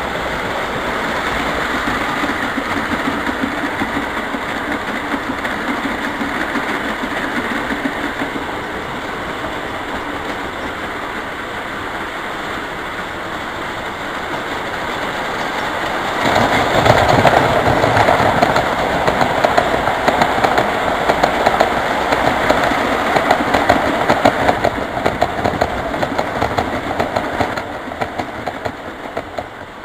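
O gauge three-rail model trains running on the track: a steady mechanical whirr with fast clicking from the wheels. It gets louder just past halfway for about ten seconds, then eases off near the end.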